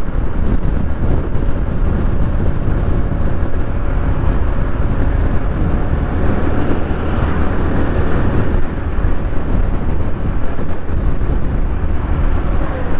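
Motorcycle riding at road speed: steady wind rumble on the microphone over the engine and road noise.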